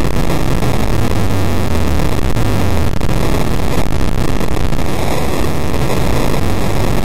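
Car running, heard as a loud, steady, distorted roar of engine and wind noise filling the whole range, with a deeper engine drone for a couple of seconds about a second in.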